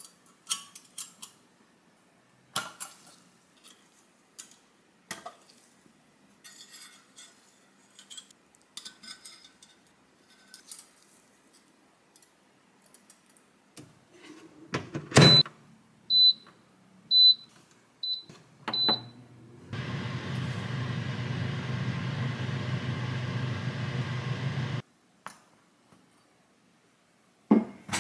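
Metal rotisserie skewers clicking and clinking as they are handled and loaded, then a thump as the air fryer oven's door shuts and five short high beeps from its control panel. The oven's fan then runs steadily for about five seconds before cutting off, followed by a few clinks.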